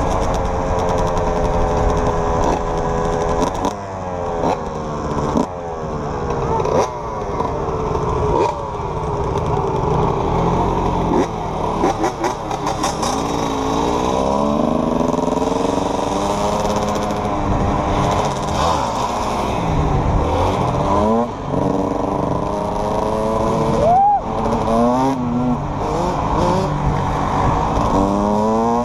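Yamaha YFZ450 sport quad and dirt bike engines revving up and down through the gears as they ride close together, with wind noise on the microphone.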